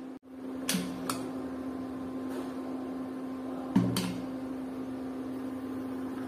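Metal cookware being handled: a few short clinks and knocks, twice around one second in and again near four seconds, over a steady low hum.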